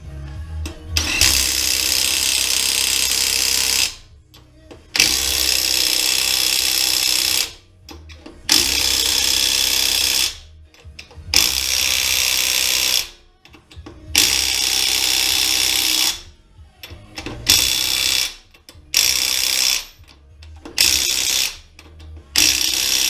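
Impact wrench tightening nuts and bolts in about eight bursts of one to three seconds each, the bursts getting shorter toward the end as the fasteners run down tight.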